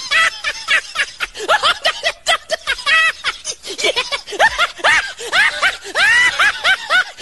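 A person laughing uncontrollably in a fast run of high-pitched laughs, several a second, without a pause.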